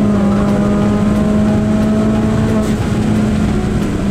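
Tuned Ford Fiesta ST's turbocharged engine running hard at high, nearly steady revs, heard from inside the cabin, with a brief break in the note about two-thirds of the way through.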